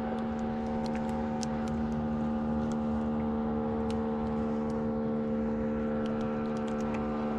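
Boat engine running steadily at a constant speed, with a few faint light ticks over it.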